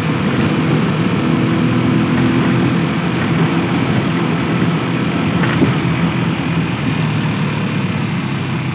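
Vehicle engine running steadily while driving, over continuous road and wind noise.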